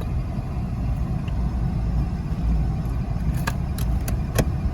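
2001 Ford Mustang's V6 engine idling steadily, a low rumble, with a few light metallic clicks near the end.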